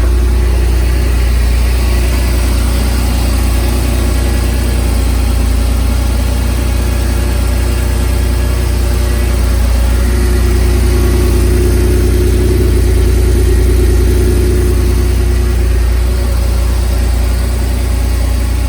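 1987 Porsche 911's air-cooled flat-six idling steadily shortly after a cold start, still warming up.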